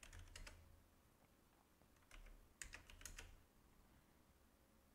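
Faint computer keyboard typing: a few keystrokes at the start, then a short cluster of keystrokes around the three-second mark.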